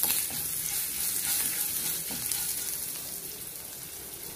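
Tempering of mustard seeds, urad dal, dried red chillies, curry leaves and garlic sizzling in hot oil in a pan, stirred with a spatula at first. The sizzle fades gradually.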